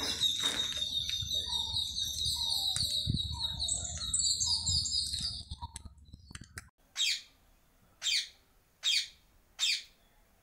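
Birds chirping: a dense run of rapid high chirps over a low rumble, which cuts off abruptly. Then come four short calls, each falling in pitch, about a second apart.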